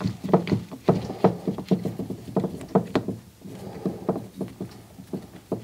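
Irregular metallic clicks and knocks from a small hand tool working the star screws out of a Bosch K-Jetronic fuel distributor's metal body, roughly two to four a second.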